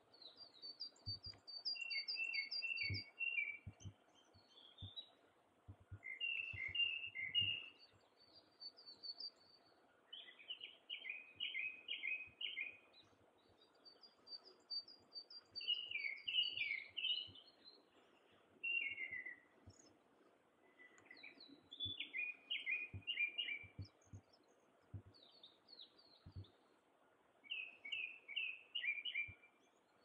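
Small songbirds singing: short phrases of quick, high, repeated notes, a new phrase every few seconds, over a faint background hum of the outdoors, with a few soft low thumps.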